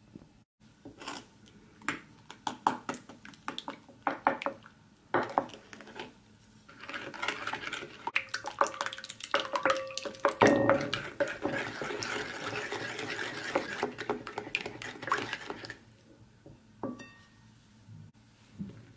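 Spoon stirring and beating a liquid egg mixture in a ceramic plate. It opens with a run of sharp clinks and taps against the plate, then about eight seconds of steady stirring with knocks, which stops a few seconds before the end, followed by a couple of last taps.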